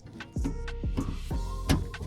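Background music with a beat: deep falling bass-drum hits a few times a second under held synth notes and sharp ticks.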